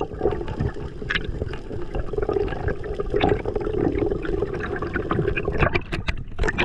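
Muffled underwater water noise picked up by a diving camera, with a quick run of sharp clicks near the end.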